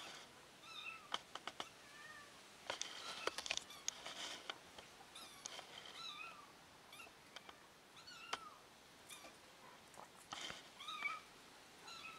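Kitten meowing over and over in short, high-pitched calls, about a dozen of them, with a few sharp clicks near the start and around the third and fourth seconds.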